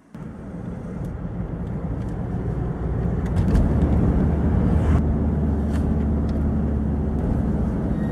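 Car driving along a road, heard from inside the cabin: a steady engine and tyre rumble that fades in and grows louder over the first few seconds.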